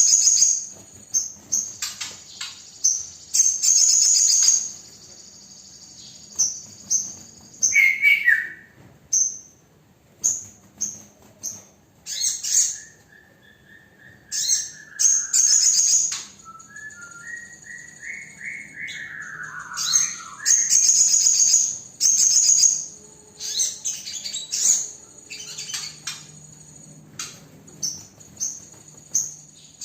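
Crimson sunbird (sogon) singing: rapid, very high-pitched chirps and trills in repeated bursts, with a run of lower whistles sliding downward in the middle.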